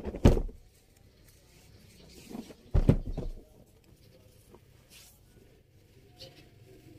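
Printed linen suit fabric handled by hand: cloth rustling and flapping as folds are lifted, turned over and laid down, loudest about a quarter second in and again near three seconds in, with softer rustles between.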